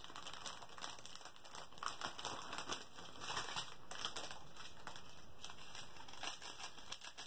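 Thin clear plastic bags crinkling and crackling in irregular bursts as small bags of diamond-painting drills are handled and pulled out of a larger bag.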